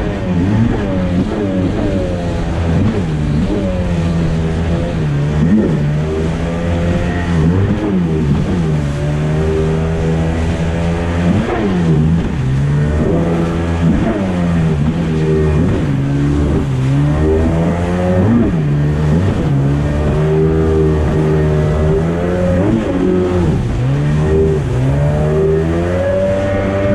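Sea-Doo GTI 720's two-stroke twin engine running at speed under way on the water, its revs swinging up and down again and again.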